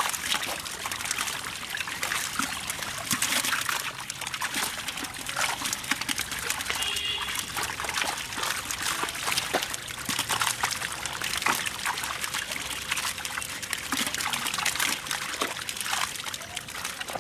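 Water splashing and trickling, with many small, quick splashes throughout.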